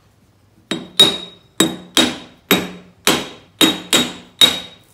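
Hammer striking the steel shaft of an old mower-deck blade spindle to drive the spindle out of the deck: nine sharp metal-on-metal taps, about two a second, each with a short ring, starting just under a second in.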